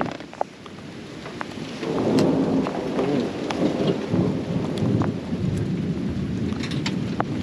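Rain falling during a thunderstorm, with a long low rumble of thunder building about two seconds in and running on.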